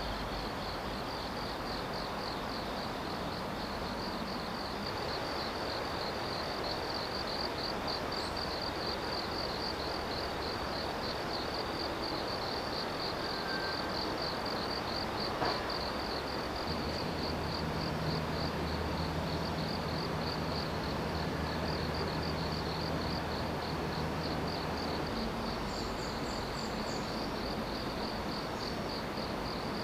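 Insects, cricket-like, chirping in a steady, rapidly pulsing high trill over a constant background hiss. A low hum joins for several seconds past the middle.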